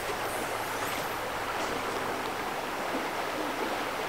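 Steady rushing of a clear spring creek's flowing water, an even wash with no distinct splashes.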